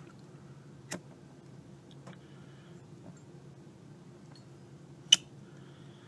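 Two sharp metallic clicks about four seconds apart, the second the louder, typical of a Zippo lighter's hinged steel lid being snapped, with a couple of faint ticks between them over a low steady room hum.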